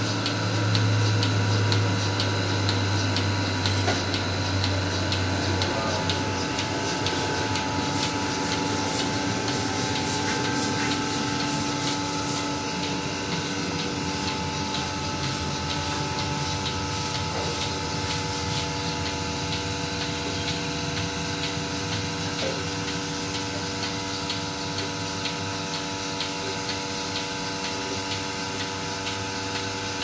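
Portable milking machine running: its electric vacuum pump hums steadily while the pulsator ticks in a regular rhythm. The hum is strongest for the first several seconds, then settles lower.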